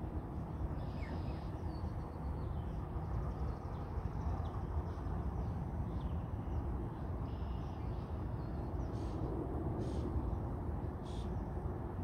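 Steady low outdoor rumble with faint, scattered bird chirps and a few short, high calls over it, several close together near the end.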